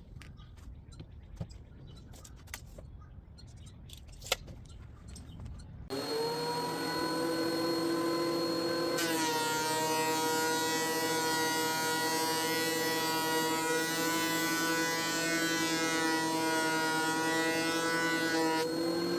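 A few light knocks, then about six seconds in a woodworking machine's motor starts, winds up to speed and runs with a steady pitched hum. Around nine seconds in the sound changes and grows fuller.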